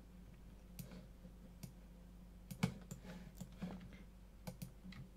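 Scattered clicks of a computer mouse and keyboard keys, single sharp clicks a fraction of a second to a second apart, the loudest about two and a half seconds in, over a faint steady hum.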